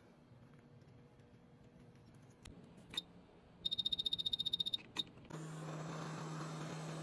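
Quick hot-air rework station: a couple of faint clicks, then a fast run of short high beeps for about a second as its temperature button is pressed, then another click. About five seconds in, its hot-air nozzle starts blowing with a steady rush of air over a low fan hum.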